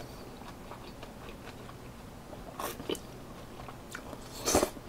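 A person eating chewy jjolmyeon noodles close to the microphone: quiet chewing with small mouth clicks, a short slurp a little past halfway and a louder slurp near the end.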